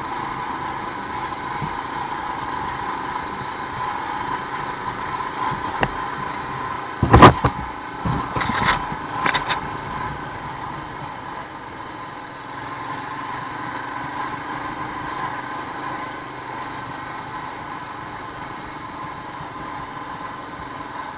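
A 2021 Royal Enfield Himalayan's 411 cc single-cylinder engine running steadily at low speed on a dirt track, heard from the bike itself. A few sharp knocks cut through, the loudest about seven seconds in and smaller ones a second or two later.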